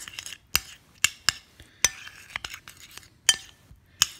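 Metal spoon stirring a wet mixture of egg yolk, capers and mustard in a ceramic bowl, clinking and scraping against the bowl. Sharp clinks come every half second or so, with softer scraping between.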